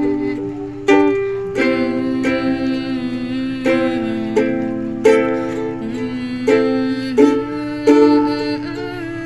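Ukulele strummed in chords, a fresh strum about every second with the strings ringing between strokes as the chords change.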